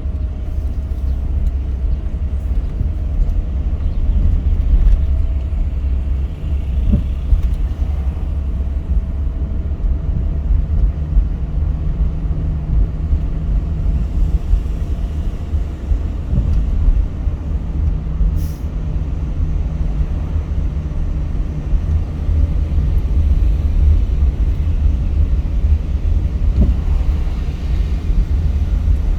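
Car being driven: a steady, deep rumble of road and engine noise, with a faint steady whine above it.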